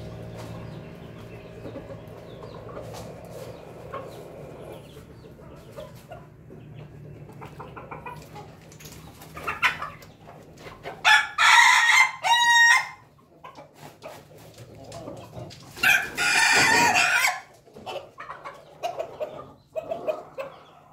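Ayam ketawa roosters (Indonesian 'laughing chicken') crowing twice. The first crow breaks into a quick run of short stuttering notes, the laughing ending typical of the breed. Hens cluck softly around and after the crows.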